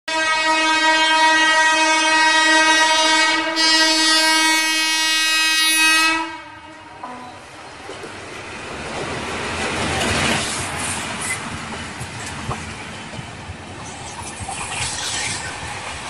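Air horn of a WAP-4 electric locomotive sounding a long, continuous honk for about six seconds, broken briefly about three and a half seconds in. Then the train runs through at speed, its rushing noise rising to a peak about ten seconds in, with wheel clatter and sharp clicks near the end.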